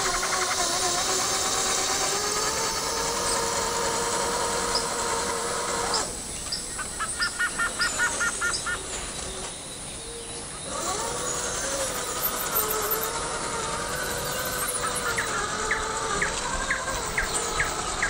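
Forest ambience of birds chirping and insects, over a low hum that wavers in pitch. About six seconds in, a rapid run of short chirps, roughly eight a second, lasts about two seconds.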